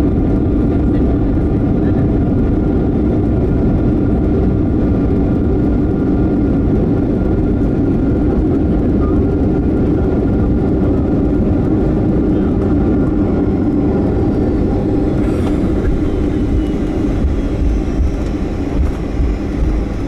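Steady engine and airflow noise inside the cabin of a Boeing 757-300 airliner coming in to land. About fifteen seconds in there is a sharp knock, followed by a high whine falling in pitch, and the noise grows uneven near the end.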